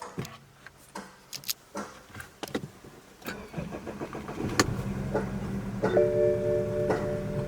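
BMW F30 engine being started on a jump-start from a booster pack: a few clicks, then about three and a half seconds in the engine catches and settles into a steady idle. It runs rough with a misfire the diagnostic code puts on cylinder one. A steady tone comes on about six seconds in.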